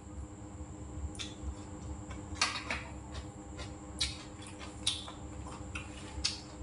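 Mouth sounds of a person eating: chewing, with about six short, sharp smacks or crunches spread a second or so apart over a faint steady hum.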